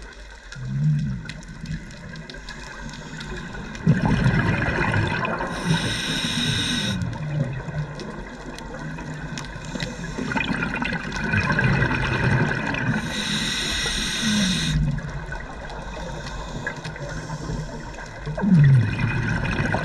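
Scuba diver's regulator breathing underwater, muffled by the camera housing: a hiss of each breath in, twice about seven or eight seconds apart, with bubbling, gurgling exhalations between.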